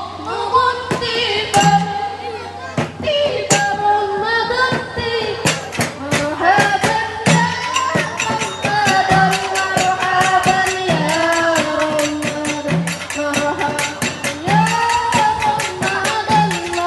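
Bagarakan sahur music: women singing over a fast, steady clicking beat of struck bamboo tubes and hand percussion, with a low drum thud about every two seconds.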